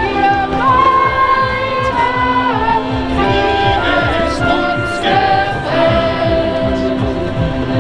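Music with singing voices carrying a melody over a steady held low note.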